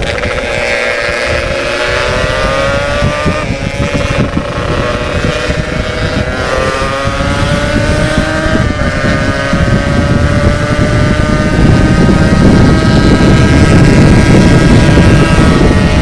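Yamaha RX King two-stroke single-cylinder motorcycle engine through an aftermarket 'setengah dewa' expansion exhaust, accelerating hard through the gears. The pitch climbs and drops back at three gear changes, then rises slowly through one long pull as wind noise grows.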